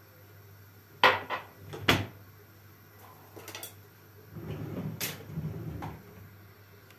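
A cupboard door opening and closing: a few sharp knocks and clatters, with a stretch of rustling handling about four seconds in.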